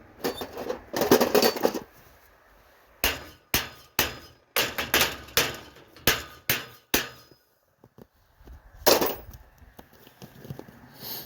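Hammer blows on metal gate hinge hardware. A quick flurry of strikes comes first, then a steady run of about eight ringing blows at roughly two a second, and one last heavy blow near the end.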